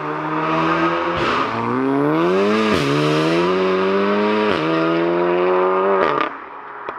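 Big-turbo Stage 3 MK7 VW Golf R's turbocharged 2.0-litre four-cylinder accelerating hard through the gears. The engine note climbs, drops sharply at each upshift, climbs again, then falls away suddenly near the end.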